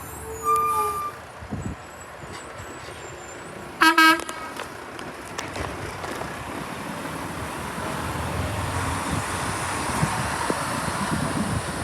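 A vehicle horn gives one short, loud toot about four seconds in. Engine and traffic noise builds steadily toward the end as a vehicle comes closer.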